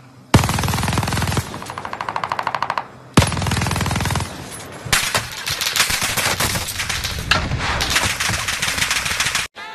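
Automatic gunfire in a first-person shooter video game: rapid sustained bursts, about a dozen shots a second in places. It breaks off briefly around three seconds in and cuts off abruptly near the end.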